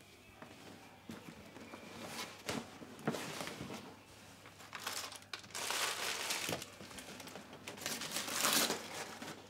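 Plastic snack packets crinkling as they are handled, in irregular rustles, with two louder bursts about halfway through and near the end.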